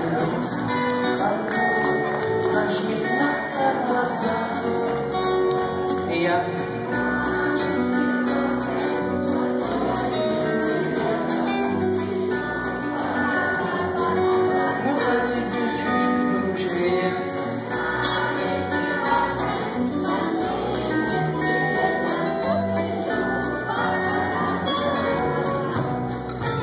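Live band music with electric guitars, drums and keyboard, recorded from the audience in a concert hall.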